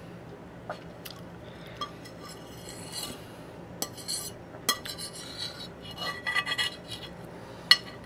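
Metal fork clinking and scraping on a glazed ceramic plate as the last scraps of food are cleared off. The clinks are scattered at first, grow busier after about five seconds, and one sharp clink comes near the end.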